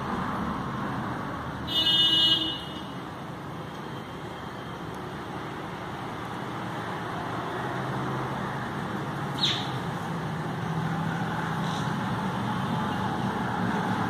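Steady street traffic noise, with a brief loud vehicle-horn toot about two seconds in and a single short falling chirp a little past the middle.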